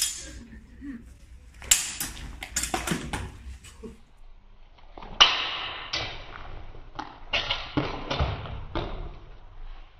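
Steel sidesword blades clashing in a fencing bout: a string of sharp metallic clanks, a short lull, then a hard strike about five seconds in followed by more clashes.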